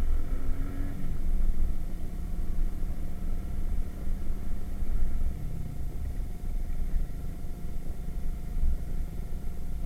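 Irbis Virago 110cc moped's single-cylinder four-stroke engine running steadily under way, with low rumble and wind on the action-camera microphone; the engine note dips slightly about five and a half seconds in.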